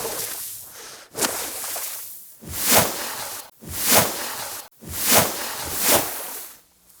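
A run of swish sound effects, about one a second. Each swells up and cuts off sharply.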